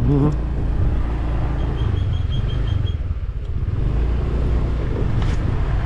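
Small motorbike riding along a sandy dirt track: the engine and the ride make a steady low rumble. About two seconds in, a brief run of quick, high, evenly spaced chirps sounds over it.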